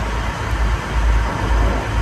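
Wind buffeting the microphone aboard a moving tour boat: an uneven low rumble over a steady hiss of moving air and water.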